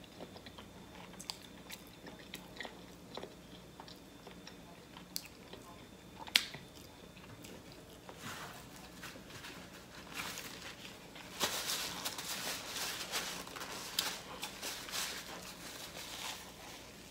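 Close-miked chewing and mouth sounds from eating a seafood boil, with scattered wet clicks and smacks and one sharp click about six seconds in. From about eight seconds a denser rustling sets in, loudest from about eleven seconds.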